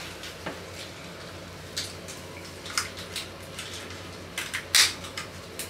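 Scattered light rustles and clicks of new clothing being handled as a sock is pulled onto a child's foot, the loudest a sharp rustle a little before the end.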